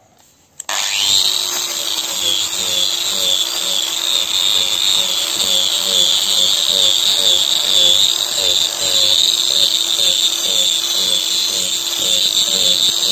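Angle grinder with a wood-carving disc starts up about a second in, its whine rising to a steady high pitch, then runs on while the disc cuts and shaves into a wooden burl.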